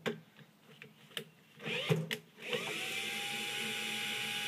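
Cordless drill/driver unscrewing a circuit board's mounting screw: a few light handling clicks, then about two and a half seconds in the motor spins up with a brief rising whine and runs at a steady pitch.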